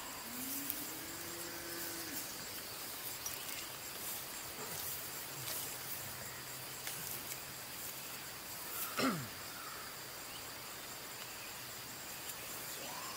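Summer field ambience with a steady high insect drone. A low call rises and falls near the start, and a sharper call drops quickly in pitch about nine seconds in.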